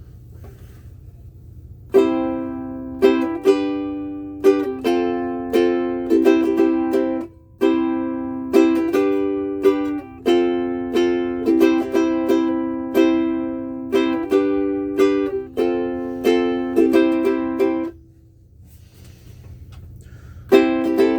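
Ohana CK-220G solid-mango ukulele with high-G strings, played as a run of strummed chords, each ringing out and fading. The playing starts about two seconds in, breaks briefly once, stops for a couple of seconds near the end, then starts again.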